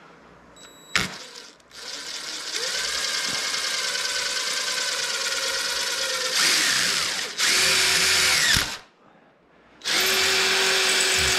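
Power drill with a 7/32-inch bit boring through metal electrical conduit. The motor runs steadily for several seconds, then speeds up and gets louder near the end of the hole. It stops, and about a second later starts again on the next stretch of drilling.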